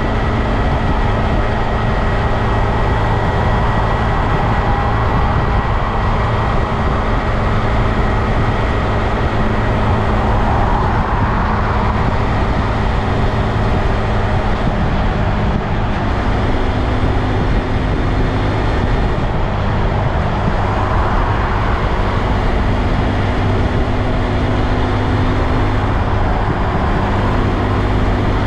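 2022 Honda Grom's single-cylinder engine running steadily under way, with wind and road noise over it.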